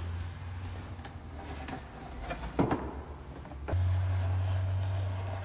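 Sharp wood chisel scraping and cutting the old windshield urethane off the metal pinch weld: scattered scrapes and clicks, the loudest a little past halfway. A low hum runs underneath and gets louder for the last second and a half.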